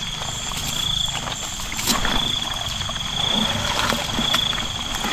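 Hands working a wet nylon net in a plastic bucket, rustling and sloshing water, with a few sharp knocks, the clearest about two seconds in. A steady, slightly pulsing high insect trill runs underneath.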